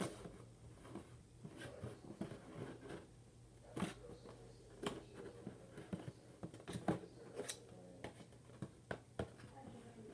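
Scissors snipping and scraping at the cardboard of an action-figure box: faint, scattered small cuts and clicks at irregular intervals.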